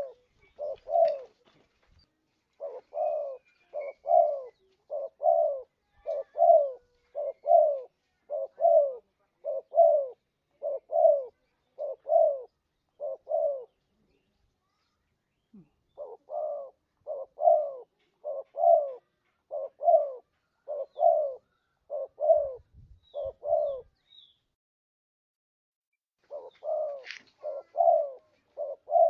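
Spotted dove (tekukur) cooing, used as a bird-catcher's lure call: runs of short, evenly spaced low coos, a little over one a second. The runs break off twice, each time for about two seconds.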